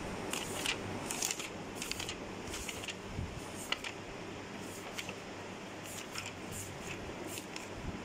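Pages of a bound paper notebook being turned by hand: short, crisp paper rustles and flicks scattered through, over a steady low hum.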